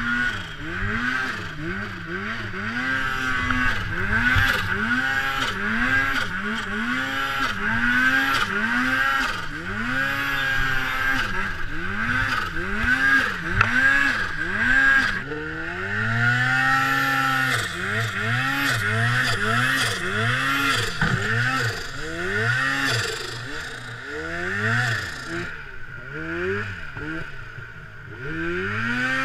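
Turbocharged two-stroke engine of a 2013 Polaris Pro RMK snowmobile with a BoonDocker turbo kit, revved up and down over and over as the sled is worked through deep snow between trees. The pitch rises and falls about once a second, with one longer steady pull about halfway through.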